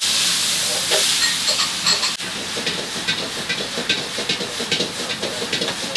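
Vegetables stir-frying in a wok with a steady hissing sizzle, broken by frequent short knocks and scrapes of cooking utensils.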